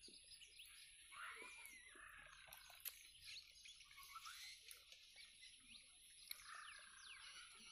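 Faint birds chirping, with many short quick chirps and a couple of longer calls about a second in and near the end, over a thin steady high tone.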